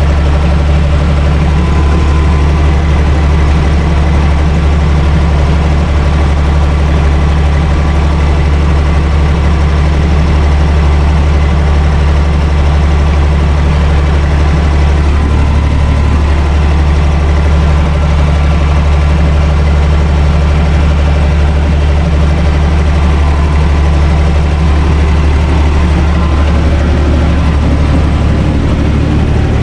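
Universal U445 DT 4x4 tractor's four-cylinder diesel engine running steadily, heard from inside the cab while it pulls a rotary tiller.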